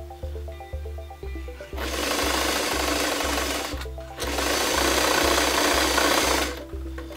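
White Model 642 domestic sewing machine running and stitching in two bursts. It starts about two seconds in, stops briefly around four seconds, runs again and stops shortly before the end. Background music with a steady beat plays underneath.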